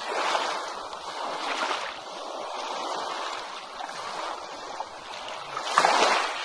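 Ocean waves breaking and washing onto a beach: surf rising and falling in several swells, the loudest about six seconds in.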